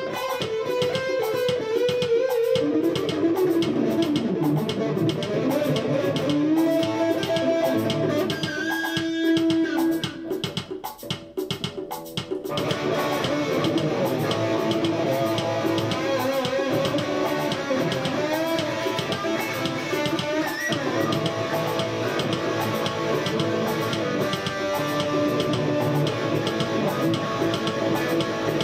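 Music with guitar and a steady drum beat. It thins out and drops quieter about ten seconds in, then comes back in full a couple of seconds later.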